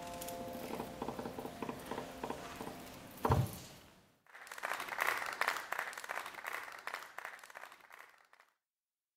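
Audience applause: scattered hand claps as the last upright-piano notes die away, a single thump about three seconds in, then a fuller round of clapping that fades out and stops.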